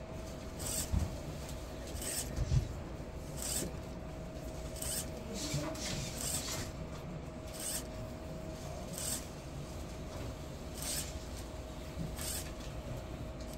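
LEGO SPIKE Prime motor driving a gear train that swings a pendulum-ride boat back and forth: a steady faint hum under a brief scratchy rub about every second and a half, once per swing.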